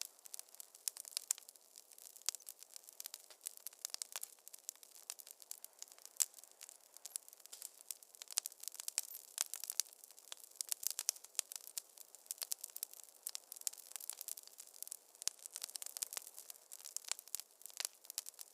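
Wood fire crackling in a fireplace: a dense, irregular stream of sharp pops and snaps over a soft hiss.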